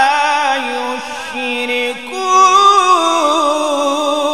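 A male Quran reciter chanting in melodic tajweed style, holding and ornamenting long drawn-out notes with a wavering pitch. About two seconds in the phrase swells louder and climbs higher.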